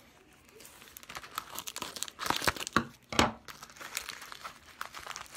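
Plastic bubble mailer being opened by hand, crinkling and tearing in irregular crackles, loudest a little past two and three seconds in.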